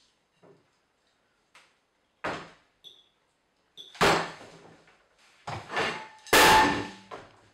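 A series of heavy bangs or slams at uneven intervals, faint at first and growing louder, each ringing out briefly. The loudest come about four and six and a half seconds in.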